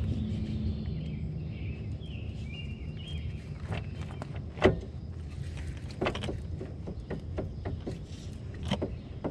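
Scattered sharp knocks and clicks as a Ford Focus front hub and brake rotor are rocked by hand, the loudest about halfway through: the play of a worn driver-side tie rod end.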